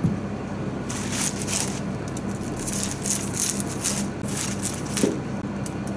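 Kitchen knife cutting through the crisp stalks of a turnip bunch just above the roots: a series of crackling, crunching cuts. A turnip is set down on the plastic cutting board with a thump at the start, and there is another knock on the board about five seconds in.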